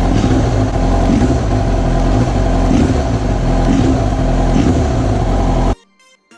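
Yamaha R6 inline-four sport-bike engine running loudly with a misfire, a fault that sounds like a V-twin and is blamed on a bad coil pack. It cuts off abruptly near the end, leaving faint music.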